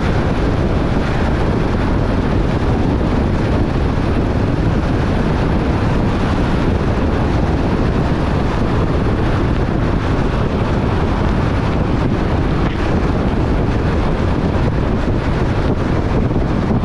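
Steady noise of a car driving on a wet road in the rain: constant tyre and wind rush with a heavy low rumble and no breaks.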